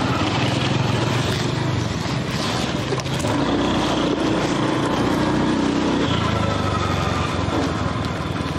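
Motor vehicle engine running as it travels along a road, its pitch shifting a couple of times as the speed changes.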